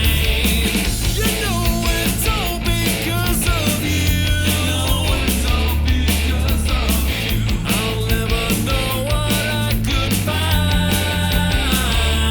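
Rock background music with a steady beat, guitar-like pitched lines bending over a sustained bass.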